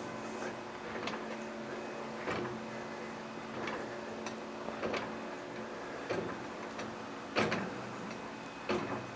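A jack being pumped to lift a heavy steel welding cart: sharp metallic clicks and knocks about once a second, with a steady low hum underneath.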